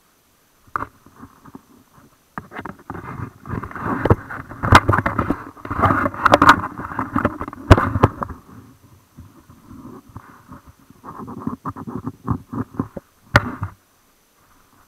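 Mountain bike rattling and jolting over tree roots and bumps on a dirt trail, with sharp knocks among the clatter. It is loudest from about two and a half to eight seconds in, eases off, picks up again, then stops shortly before the end.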